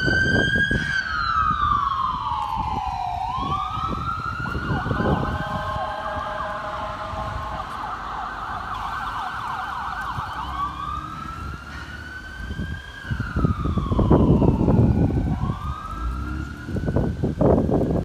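Ambulance siren wailing in slow rising and falling sweeps, with a second siren overlapping it in the middle. A low rumble of passing traffic rises under it near the end.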